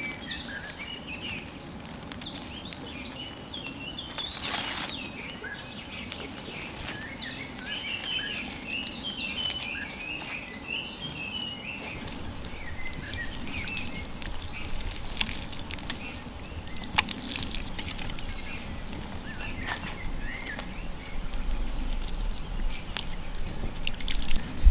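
Outdoor ambience of small birds chirping again and again, with scattered light taps and a low rumble that builds from about halfway through.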